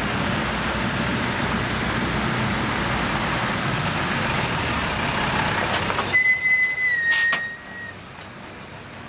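Convoy of military trucks and jeeps driving past on a gravel lane, engines running steadily as a covered truck goes by close. About six seconds in, a high steady whistle-like tone sounds for nearly two seconds, dipping slightly in pitch, and the vehicle noise then drops away.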